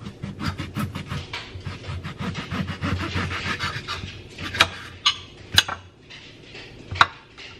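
Kitchen knife sawing through the flesh of a ripe champagne mango alongside the pit, a quick, rapid rasping with many short strokes. Then a few sharp clicks of the knife and fruit against the plate as the cheek comes free.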